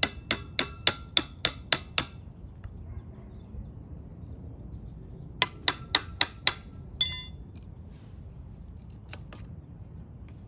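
Ringing metal-on-metal strikes on a scooter's rear shock absorber as its spring and bushing are worked off, in quick runs of about three or four blows a second: about eight at the start and five more after a pause of a few seconds. A short metallic clatter follows the second run.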